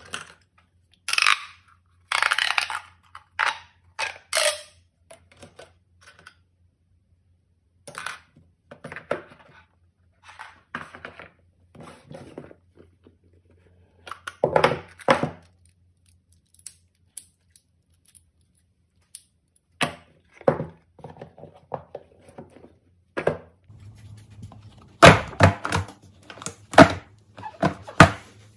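Hands handling cardboard and plastic boxes and fidget toys on a tabletop: scattered knocks, taps and rustles with quiet gaps between, and a cluster of louder knocks near the end.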